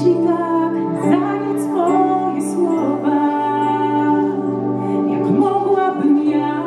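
Woman singing a slow ballad live, with long held and gliding notes over sustained keyboard chords.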